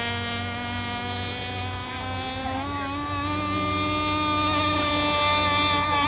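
Gas RC boat's small two-stroke engine running out on the water with a high buzzing note; the pitch dips at the start, rises about halfway through, and the sound grows louder toward the end.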